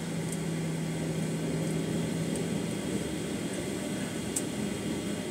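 Steady cabin noise inside a Boeing 737-900ER taxiing, with its CFM56 engines running at idle. A low steady hum stops about three seconds in.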